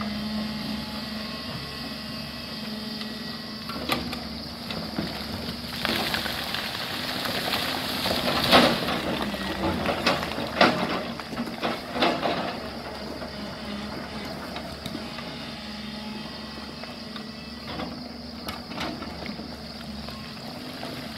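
JCB excavator's diesel engine running steadily as its bucket works loose landslide rock. Stones clatter and knock repeatedly, loudest from about six to twelve seconds in.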